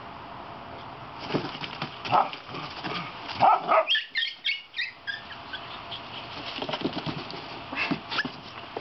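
Dogs at play: a run of short, high-pitched yips and whimpers with a few barks, loudest around the middle and again near the end, among short clicking noises.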